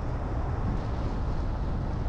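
Steady low rumble of a car driving: engine and road noise.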